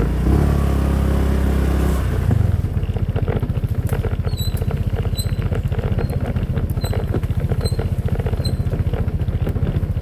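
Honda PCX scooter's single-cylinder engine running as it carries two riders along a bumpy forest dirt track: strongest and loudest over the first two seconds as it pulls away, then steady with a rapid pulsing.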